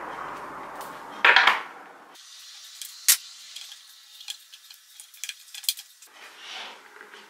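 Hand-handling noise as a wire hose clamp and a ribbed rubber intake hose are worked onto the metal inlet of an oil bath air filter: a loud scrape about a second in, then scattered light metallic clicks and clinks.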